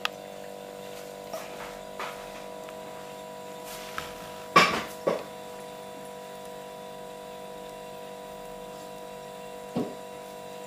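Steady electrical hum of several even tones, with a few faint clicks and taps and one short, louder sound a little under halfway through.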